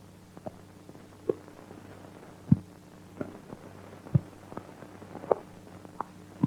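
Steady low electrical hum with about a dozen sharp clicks and pops at irregular intervals, the loudest about two and a half seconds in and again a little after four seconds.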